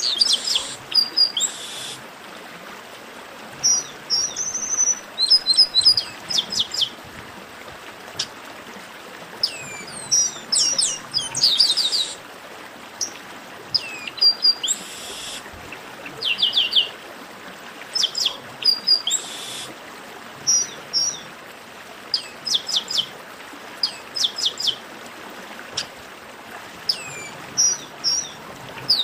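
Chestnut-capped blackbird (papa-arroz) song: quick runs of three to six high, downward-slurred whistled notes, repeating every second or two, with short harsh buzzy notes between them, over a steady background hiss.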